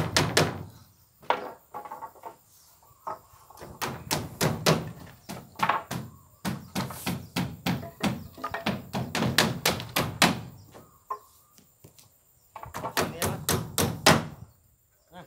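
Hammer driving nails into a wooden wall frame: runs of rapid, sharp strikes, several a second, broken by short pauses.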